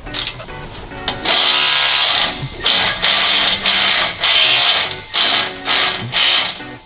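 A power tool running in short bursts, two of about a second each, then several shorter ones toward the end, over background music.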